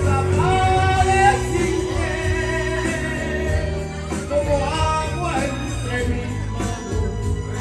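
Karaoke: a voice singing a Spanish-language song over a backing track with a steady bass line.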